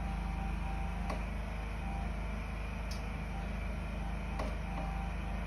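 A steady low hum with three light knocks, plastic soda bottles being lifted and set down on a shelf.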